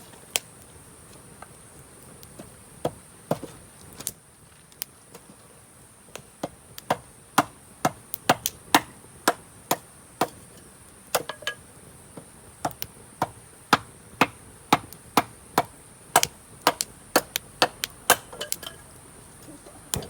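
Scrap cedar wood being chopped: a series of sharp wooden strikes, a few scattered at first, then about two a second from about seven seconds in.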